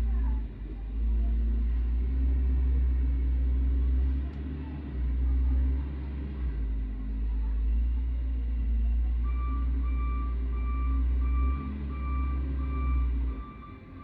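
Case 721 wheel loader's diesel engine running under load while it pushes and scoops snow, with a deep steady rumble. A reversing alarm starts beeping about twice a second roughly nine seconds in.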